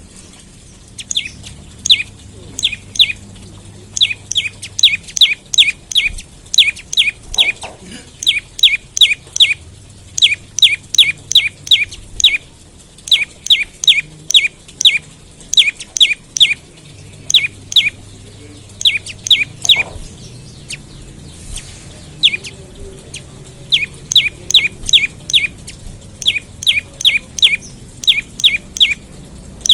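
Prenjak lumut (a prinia) song: a rapid series of sharp chirps, each falling in pitch, about three or four a second, in runs of several notes broken by short pauses. It is a lure recording played to set other prenjak singing.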